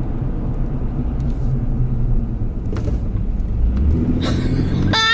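Car road noise heard from inside the cabin while driving: a steady low rumble of engine and tyres. A brief wavering pitched sound comes right at the end.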